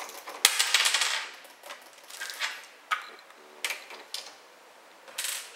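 A screwdriver backing a small screw out of a plastic radio cassette housing: a scratchy grinding burst about half a second in, followed by several light clicks and taps of the screw and tool against the plastic.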